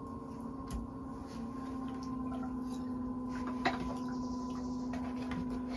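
Electric potter's wheel running with a steady hum, with soft wet squishing and light clicks as wet clay is shaped with a rib. One sharper click comes a little past the middle.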